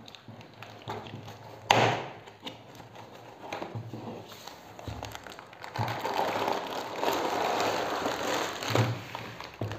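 Hands tearing open a cardboard shipping box, with one loud sharp sound about two seconds in and small scattered crackles. Then a denser rustle and crinkle of a plastic bag as the wrapped siphon pump slides out of the box.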